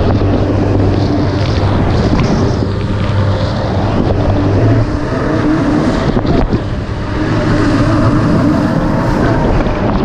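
Turbocharged four-stroke inline-four engine of a Honda AquaTrax F-12X personal watercraft running at speed. Its steady engine note holds for about half the time, then wavers and breaks up, with wind buffeting the microphone.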